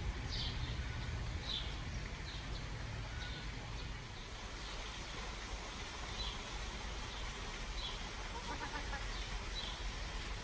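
A bird chirping, short high chirps repeated about once a second, over a steady low rumble.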